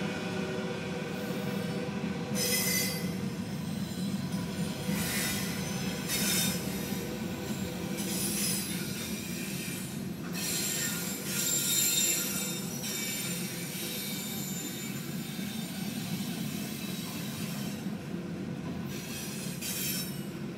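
Double-stack container freight train rolling past: a steady low rumble of wheels on rail, with short high-pitched wheel squeals breaking in every few seconds.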